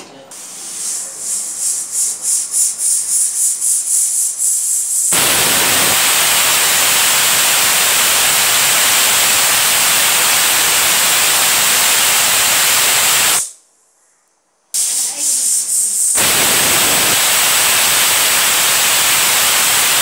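Pressure cooker's weighted whistle valve venting steam: it starts as a fast sputtering puff, about four a second, then opens into a loud, steady hissing whistle with a high tone on top. It breaks off for about a second two-thirds of the way in, sputters again and blows a second whistle, each whistle the sign that full pressure has built up inside.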